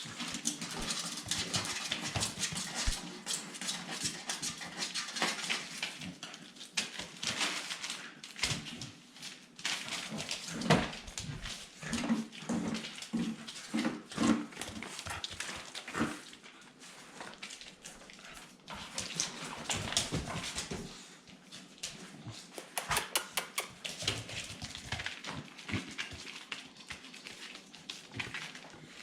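Staffordshire bull terrier puppies making short, broken vocal sounds amid many clicks and scuffling knocks.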